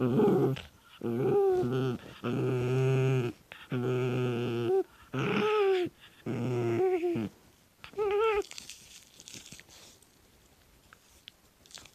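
A mame-shiba (small Shiba Inu) giving a strange, drawn-out bark: a string of about six long, flat-pitched yowling calls, each about a second long, then it goes quiet for the last few seconds. It is the odd, excited bark this dog gives when told "no" while play-biting a hand.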